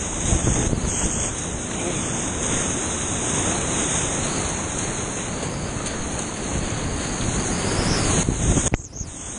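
Whitewater rapids rushing steadily and loudly around a kayak, heard from right at the boat in the middle of the river. Near the end the sound dips sharply for a moment, then comes back.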